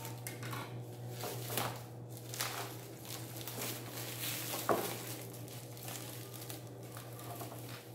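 Plastic packaging, film and bubble wrap, crinkling and rustling as it is slowly peeled off by hand, in irregular crackles with one sharper crackle a little past halfway.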